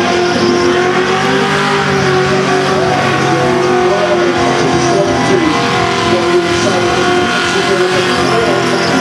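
FPV GT's V8 held at high, steady revs during a burnout, with the spinning rear tyres squealing against the pad.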